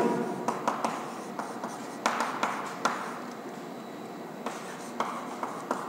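Chalk writing on a blackboard: short scratchy strokes broken by small taps as the chalk meets the board.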